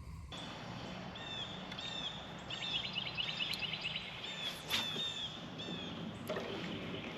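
Small birds chirping over and over in short, quick runs of high, curved notes, over a steady hiss of flowing river water.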